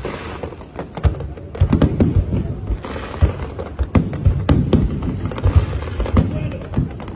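Aerial fireworks shells bursting in rapid, irregular succession, a few booms a second, with a stretch of crackle about three seconds in.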